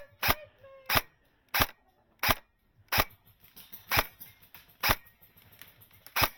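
Airsoft gun firing single shots in a steady string, about eight sharp cracks a little under a second apart.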